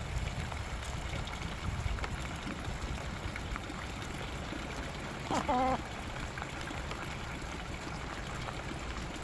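Steady rain falling, a continuous even hiss with a low rumble. A short pitched call cuts in briefly a little past halfway.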